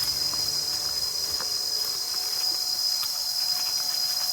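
Steady, high-pitched insect chorus, an unbroken buzz with a few faint ticks beneath it.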